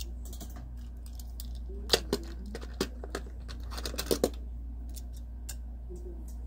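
Small sharp clicks and taps of die-cast toy cars being handled and set down on a little display stand, most of them between about two and four and a half seconds in, over a low steady hum.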